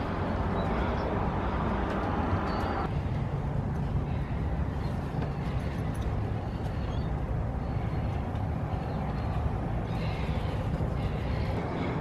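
Steady low rumbling outdoor noise, with a few faint light clicks now and then.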